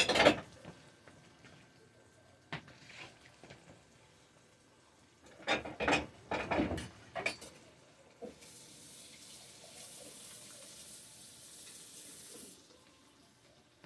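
Kitchen tap running steadily for about four seconds in the second half, after a few clusters of clattering knocks from dishes and utensils.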